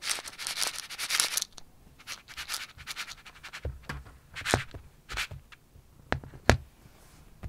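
Dry cat kibble rattling into a plastic bowl for about a second and a half, followed by scattered sharp clicks and knocks of the bowl and kibble on the floor, the loudest near the end.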